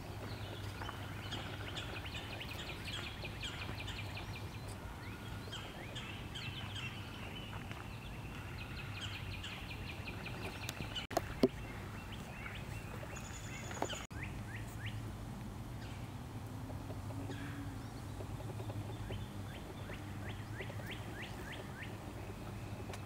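Several songbirds singing in woodland, with quick trills and runs of repeated high notes, over a steady low hum. A single sharp knock sounds about halfway through.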